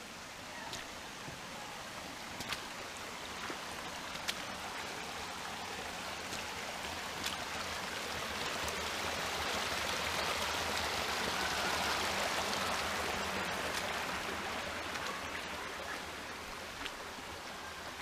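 Shallow creek water running over rocks, swelling to its loudest about halfway through where a small waterfall spills over a rock ledge, then easing off. A few sharp clicks in the first half.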